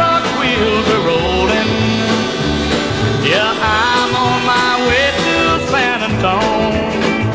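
Country music with a steady bass beat and sliding melody lines.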